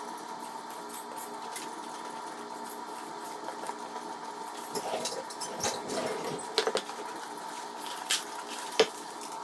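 Wire hand whisk stirring flour into a thick batter in a stainless steel bowl: soft scraping, with a few sharp clinks against the metal in the second half. A steady background hum runs underneath.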